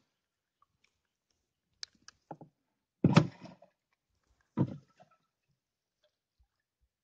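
Handling noises close to the microphone: a few light clicks, then two louder rustling knocks about three and four and a half seconds in, as the angler moves right by the camera and takes up the fishing rod.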